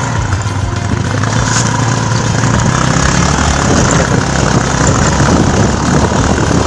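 A dirt bike's engine running steadily.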